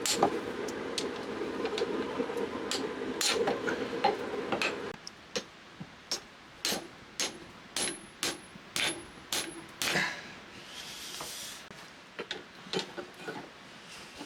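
A steady hum that cuts off about five seconds in, then a run of sharp hammer blows on steel spring stock, about two a second, some with a thin metallic ring. After them come a brief hiss and a few scattered knocks.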